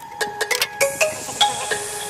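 Background music: a light electronic track of short plucked, mallet-like notes in a steady rhythm.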